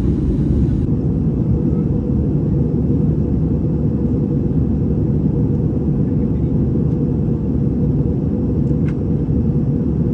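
Steady cabin noise inside an Airbus A320 in flight: engine and airflow noise heard as a deep, even rumble.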